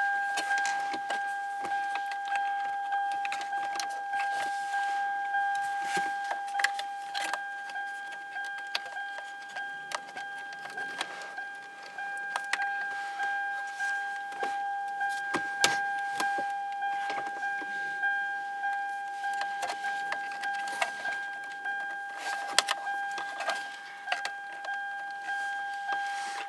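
Plastic dashboard trim and a wiring connector clicking and rattling as they are pried at and handled by hand, with a few sharper snaps. A steady high-pitched tone sounds throughout.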